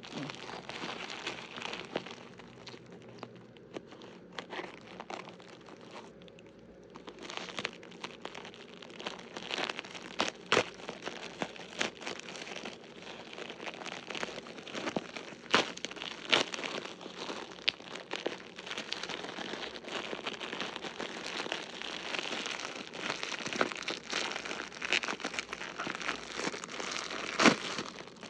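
Plastic packaging crinkling and crackling as it is cut and pulled open with scissors, with sharp snaps scattered throughout. It eases off for a few seconds early on, then picks up again.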